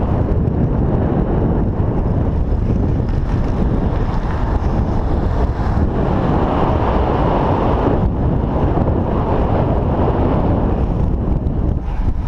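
Wind rushing over the microphone of a camera carried on a moving bicycle, a steady low rumble that swells for a couple of seconds in the middle.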